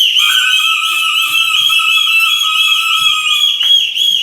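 Pea whistle blown hard and held, a shrill, rapidly warbling tone with a weaker lower tone under it, breaking briefly about three and a half seconds in.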